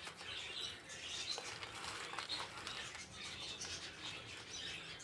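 Birds chirping over and over in the background, in short high calls.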